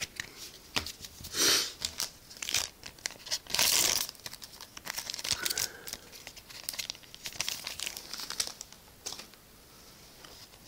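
Foil trading-card booster pack wrapper crinkling as it is handled and torn open, with two louder stretches about one and a half and four seconds in, then lighter crinkles that die away near the end.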